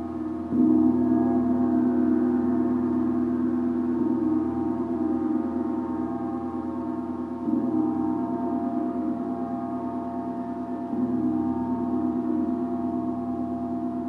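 A deep gong played softly, swelling three times: about half a second in, about halfway through, and again near the end. It rings on between strokes as a sustained, humming drone with many overtones, never dying away.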